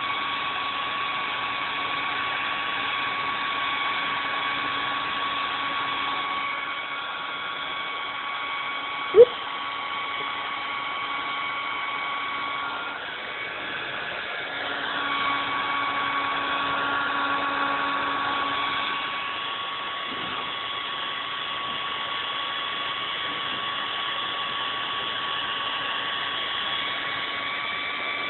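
Handheld hair dryer running steadily, blowing air with a constant whine. A single short knock about nine seconds in.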